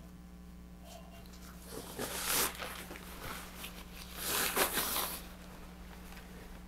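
Parachute canopy fabric and shroud lines rustling as they are handled, in two swells: one about two seconds in and a longer one about four and a half seconds in.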